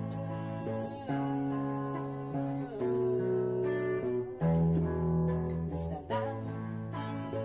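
A guitar being strummed in a slow run of sustained chords that change every second and a half or so.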